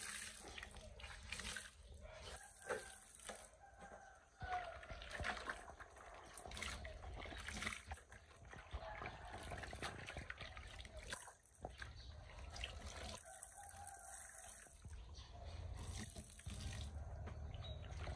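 Washing by hand under a running tap: water splashing and dripping, with irregular small knocks.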